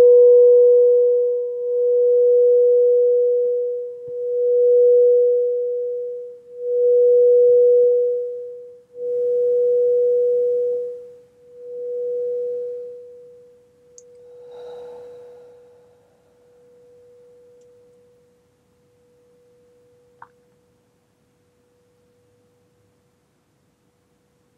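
Frosted quartz crystal singing bowl ringing on after the mallet has left it: one pure tone that swells and fades about every two seconds and slowly dies away, gone about twenty seconds in.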